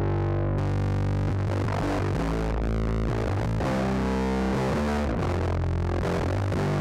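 Electric guitar played through an EarthQuaker Devices Bit Commander V2 analog guitar-synth pedal: distorted, synth-like sustained notes with a heavy low octave underneath, changing note about once a second.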